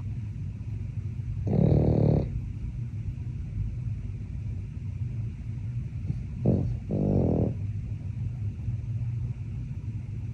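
Sleeping pug snoring: a steady low breathing rumble, with louder snores about a second and a half in and twice in quick succession around seven seconds in.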